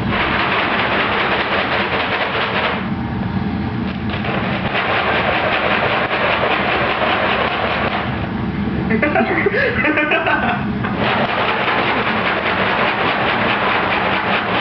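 Scratchy rustling in three bouts of a few seconds each, with short pauses between them, and a brief wavering pitched sound in the middle pause.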